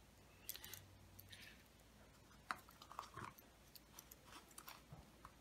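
Faint clicks and light knocks of small parts being handled: the speedometer mechanism set down on the table and a small screwdriver picked up to undo its screws, the sharpest click about two and a half seconds in.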